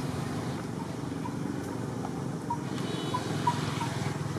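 Steady low outdoor background rumble, with a scattering of short, faint high chirps.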